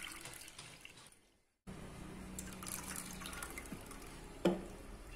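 Soy milk mixed with agar-agar poured from a glass bowl into a saucepan: a faint trickling and dripping, with one short knock near the end.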